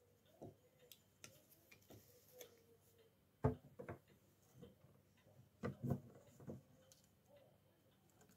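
Faint clicks and knocks of steel carpenter's pincers gripping and levering small nails out of a cabinet's plywood back panel, with a few louder clicks about halfway through and again a little later.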